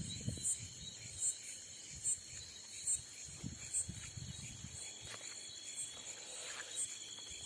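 Crickets chirping in a steady rhythm, a short high pulse a little more than once a second, over a continuous high insect hum. Faint low rustling and soft bumps sit underneath.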